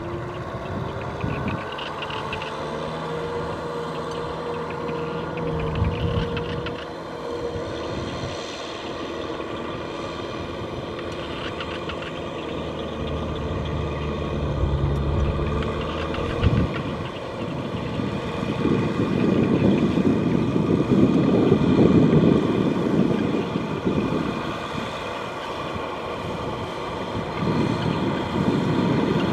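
Tractor engine running under load, its pitch rising in the first couple of seconds and then holding steady; past the middle the note changes and a louder, rougher stretch follows before settling again.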